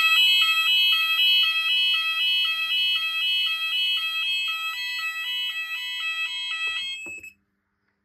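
Gent C3-type conventional fire alarm sounder going off in a two-tone alternating warble, about two and a half alternations a second, set off by the new Gent optical smoke detector going into alarm on the Gent Xenex panel. It cuts off suddenly about seven seconds in.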